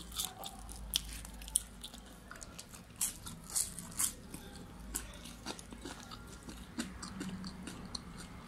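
People eating chicken wings and fries: biting and chewing, with scattered sharp crunches and clicks.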